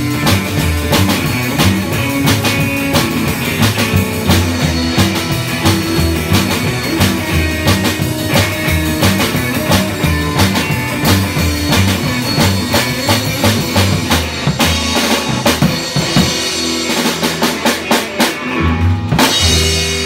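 Live band playing with electric guitar, upright double bass, acoustic guitar and drum kit, the bass walking steadily under the drums. About four seconds before the end the bass line drops away and the band plays a few separate closing hits as the song ends.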